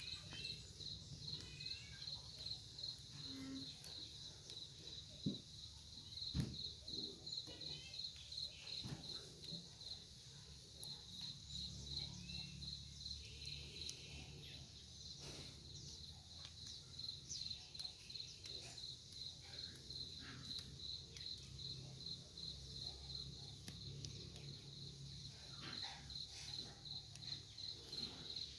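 A cricket chirping steadily in an even, rapid pulse, a few chirps a second, with faint scattered clicks and rustles of plant handling.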